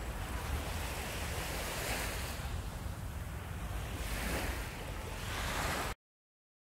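Wind buffeting the microphone over the wash of surf on a beach, a steady rumbling noise that swells now and then. It cuts off abruptly to silence about six seconds in.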